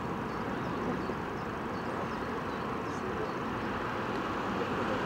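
Distant town traffic from the valley roads below, a steady even hum of vehicles with no single one standing out.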